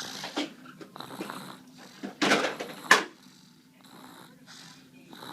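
A sleeping pet snoring in irregular noisy breaths. The loudest is a long breath about two seconds in, followed by a short sharp breath; after that the breathing is quieter.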